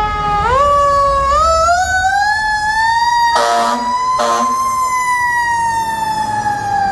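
Fire engine's Federal Q2B mechanical siren winding up in steps to a high peak, then slowly coasting down in pitch. Two short blasts of the air horn cut in about three and a half and four seconds in.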